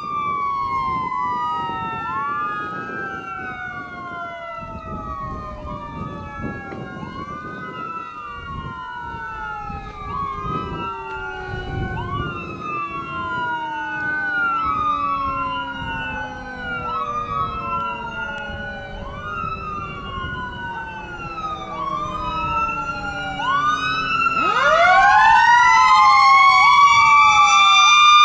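A 2020 Spartan MetroStar fire engine's electronic siren sweeps up and down about every second and a half, while its mechanical Q siren slowly coasts down in pitch. About 24 seconds in, the Q siren is wound up again into a rising scream, the loudest part, with a low truck rumble underneath.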